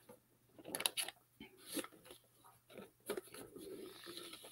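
Soft rustling and a few short crackles as hands press and fold decoupage paper around a cardboard box, with a longer rustle near the end.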